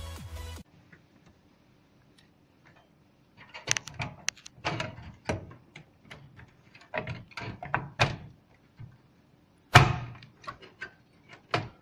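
Irregular clicks and knocks of computer hardware being handled and fitted into a PC case, as a graphics card is seated ready to be screwed down. The sharpest knock comes near the end.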